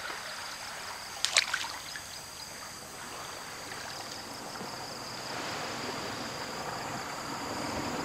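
Gentle water lapping and trickling in a shallow cove, with a brief splash about a second and a half in. A faint steady high whine runs behind it.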